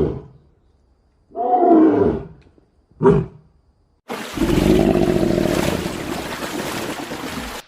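Lion roaring: two short calls falling in pitch and a brief grunt, then one long low roar of about three and a half seconds that cuts off near the end.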